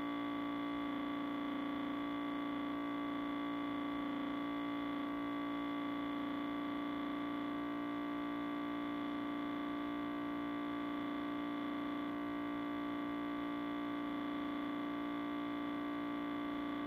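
Sustained audio feedback: a steady drone of several held tones, the loudest a low hum, with no change in pitch or level.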